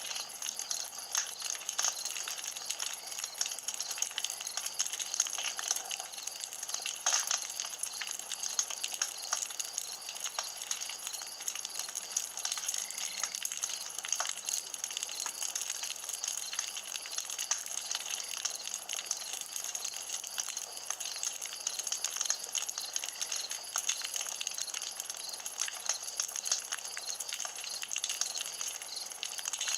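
Campfire burning: a steady hiss with many small crackles and pops throughout, one sharper pop about seven seconds in.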